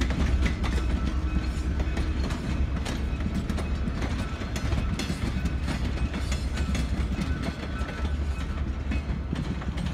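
Passenger coach and steel caboose rolling past at low speed, their wheels clicking on the rails over a steady low rumble. The sound eases slightly in the last couple of seconds as the caboose goes by.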